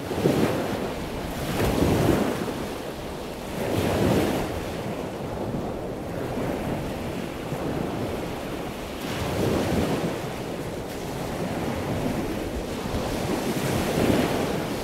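Ocean surf: waves washing in over a steady rush of water noise, swelling roughly every two seconds at first, then at longer intervals.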